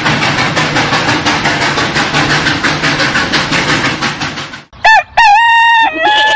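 Steam-train chugging sound effect, a fast even rhythm that stops about four and a half seconds in. A rooster then crows loudly: a short note, then a long drawn-out crow that falls away at the end.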